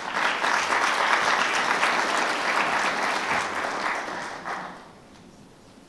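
Audience applauding, many hands clapping at once, dying away after about four and a half seconds.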